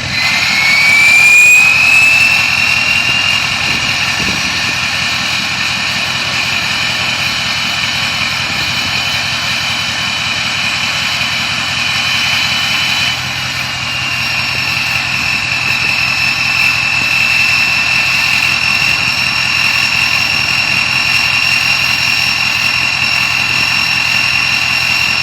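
Ford 6.0 Powerstroke diesel's variable-geometry turbo whistling over the engine: a high whistle rises in pitch as the engine revs up near the start, then holds steady, dipping briefly about halfway through.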